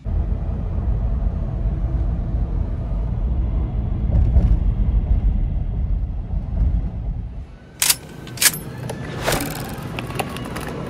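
Steady low rumble of a moving vehicle, then two sharp clicks about eight seconds in and a fainter knock a second later.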